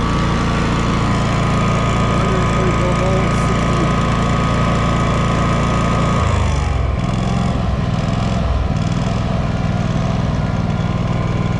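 DuroMax XP16000iH inverter generator running on propane at high speed with no load. About six seconds in its low-idle mode is switched on, the engine speed drops in a falling glide, and it then runs slower and a little unevenly.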